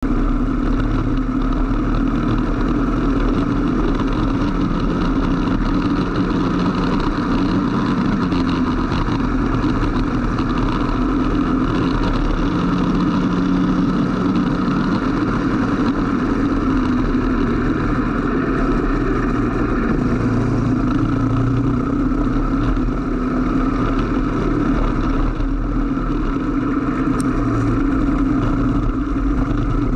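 Onboard sound of a racing kart's engine running at speed, its revs rising and falling as the kart accelerates and slows through the corners, over a steady hiss from the wet track.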